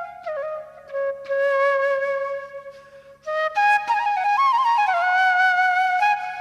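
Background music: a solo flute melody of long held notes with slides and ornaments between them, with a short break about three seconds in.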